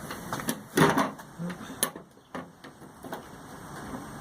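Irregular light clicks and taps from parts being handled during hand work on the wheelbarrow.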